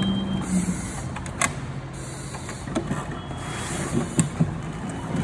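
Firefighter breathing through an SCBA mask regulator, the breaths coming as recurring hisses every second or two, with sharp knocks of gear against the wooden prop about a second and a half in and again near the end.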